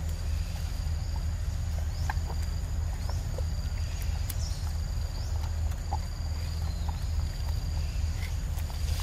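Pig-tailed macaques chewing ripe mango, with small wet smacking clicks scattered through, over a steady low rumble and a steady high-pitched buzz.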